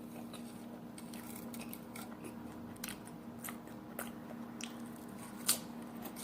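A person chewing food, with scattered crisp crunches and one louder crunch near the end, over a steady low hum.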